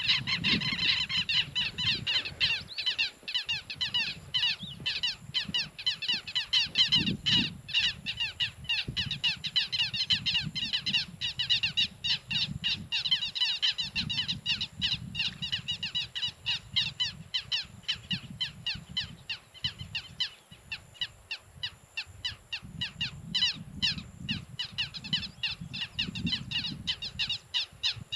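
A dense chorus of birds calling in rapid short chirps, several a second, with no pause. Underneath, a low rumbling noise swells and fades.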